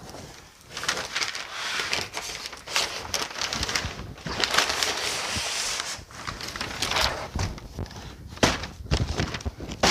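Cardboard boxes and bubble-wrapped items rustling, scraping and crinkling as they are shifted around inside a cardboard pallet box, with scattered knocks. The sharpest knocks come in the last second and a half.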